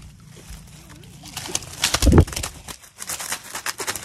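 Rustling and crackling of leafy undergrowth being brushed and pushed through, with a loud low thump about two seconds in.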